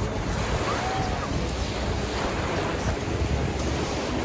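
Small waves washing in over a sandy beach, with wind rumbling on the microphone.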